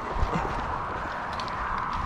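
A person's running footsteps on a paved road, a few footfalls in the first half, over a steady background hiss.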